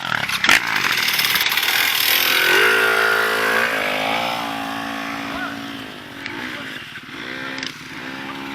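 Dirt-bike engine revving, its pitch stepping up about three seconds in, holding, then falling away, with a second short burst of revs near the end.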